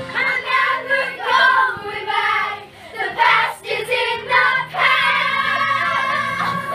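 A group of girls singing a song together.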